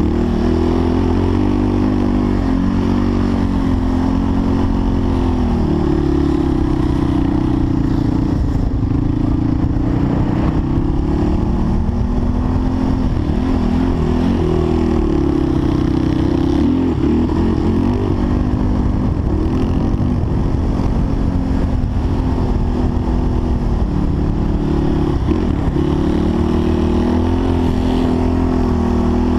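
Engine of an off-road machine in the sand dunes, run hard and revving up and down over and over as it climbs and crests the dunes. Heavy rumble and wind noise on the rider's camera sit under the engine the whole time.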